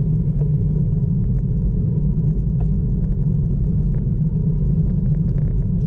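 Wind rumbling over the microphone of a GoPro camera on a moving bicycle: a steady low rumble that does not let up.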